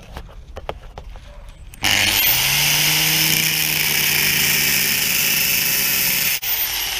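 Makita 115 mm (4½-inch) angle grinder with a cutting disc switching on about two seconds in and spinning up, then cutting into a steel narrowboat rubbing strake with a loud, steady, high-pitched noise. Near the end it is switched off and winds down.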